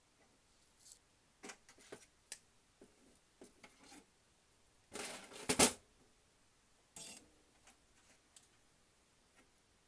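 Small metal locomotive parts and hand tools clicking and clattering on a sheet-metal work surface as a model train chassis is taken apart. The loudest clatter comes about halfway through, as a tool is set down on the metal.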